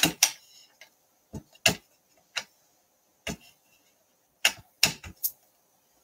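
Stamp tapped again and again onto a Memento ink pad to ink it: about ten short, sharp taps at uneven spacing.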